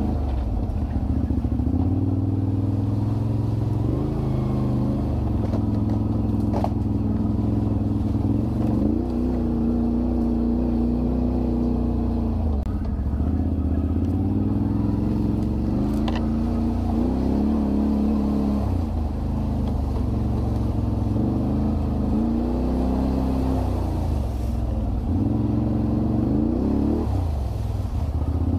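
ATV engine running steadily and revving up several times under throttle.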